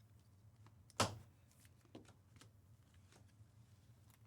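Light handling of trading cards: a sharp tap about a second in, then a few faint clicks, over a quiet room.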